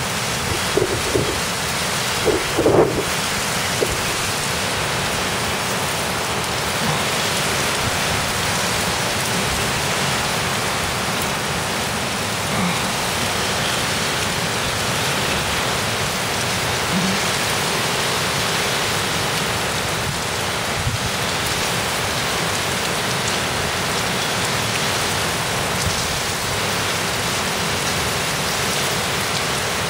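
Heavy rain pouring down steadily in a severe thunderstorm, with a few brief louder bursts in the first three seconds.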